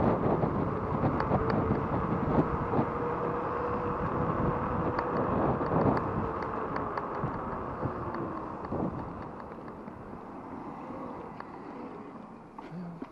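Riding noise from an electric bike on a windy day: wind buffeting the chest-mounted microphone over tyre and road noise, with frequent small knocks and rattles and a faint whine. The noise eases off over the last few seconds.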